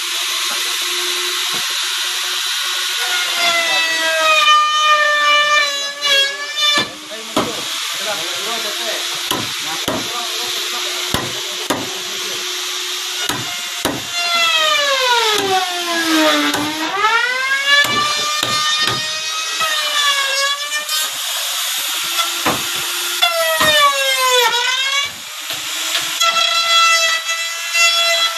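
Handheld electric woodworking power tool working timber: a motor whine that repeatedly drops in pitch as the tool is loaded in the wood and climbs back as it frees, over a steady cutting hiss. Scattered sharp knocks in between.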